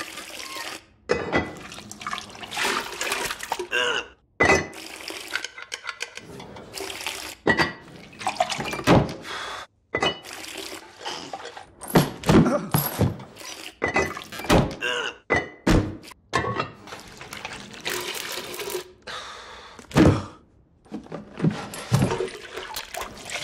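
Rapid succession of short, abrupt sound effects: wet splashing and sloshing of a chamber pot being emptied, and thunks and knocks of heavy objects and books being set down, each cut off sharply.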